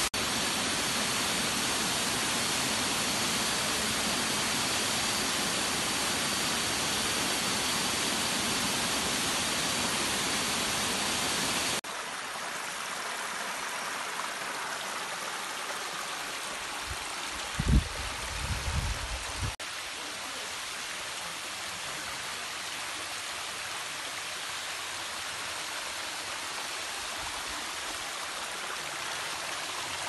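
Stream water pouring over rocks from a small waterfall, a steady even rush. About 12 s in it cuts to a quieter, smaller cascade splashing into a pool, with a few low thumps some seconds later.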